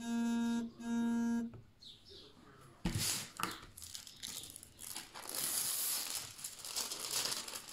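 Two short pulses of a low buzzing tone at the start, then the clear plastic film over a diamond-painting canvas crinkling as it is lifted and pressed back down by hand.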